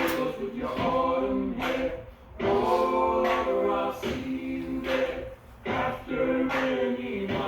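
Background music: an a cappella vocal group singing a series of held chords in harmony.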